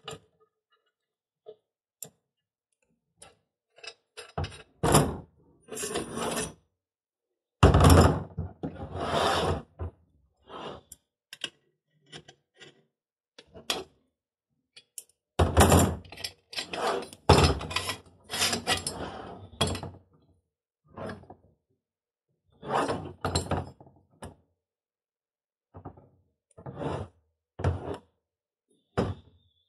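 Steel parts of a tire changer's duck head adapter being taken apart by hand: scattered knocks and clanks of metal pieces handled and set down on a table, with denser spells of scraping and clicking as locking pliers and a ratchet wrench work the bolts loose.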